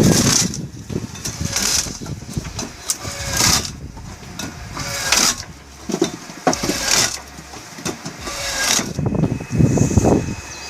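Small engine-driven wood-cutting machine running, with a louder, harsher burst about every one and a half to two seconds as it works through wood.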